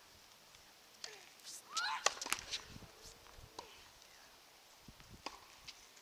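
Tennis balls being hit and bouncing on a hard court: a cluster of sharp taps between about one and three seconds in, with a brief rising squeak around two seconds, then a few scattered single taps.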